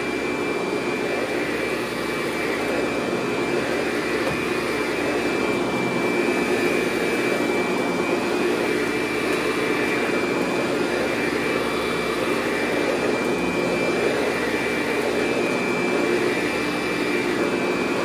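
Eureka The Boss 5-amp upright vacuum cleaner running steadily as it is pushed across carpet, a steady high whine over the motor's rushing air noise.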